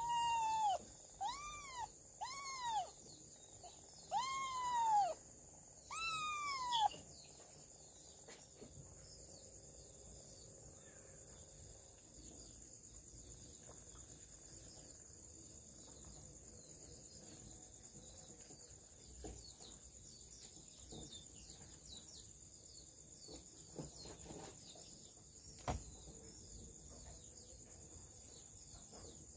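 A cat meowing five times in the first seven seconds, each meow rising then falling in pitch. After that only a steady high chirring and a few faint knocks remain.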